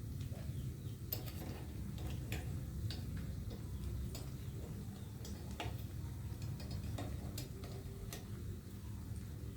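Scattered, irregular light clicks and taps of kitchen utensils against cookware, over a steady low rumble.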